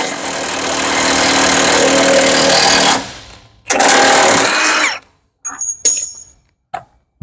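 Milwaukee cordless impact wrench hammering in two bursts, about three seconds and then about one second, as it drives an improvised press that pushes a bronze bushing into the forklift steer axle's bore. A few light metal clicks follow near the end.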